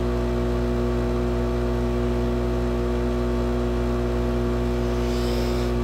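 Kendal 852D+ hot-air rework station running and blowing air, a steady, even hum with a whir. Faint rustling comes in near the end.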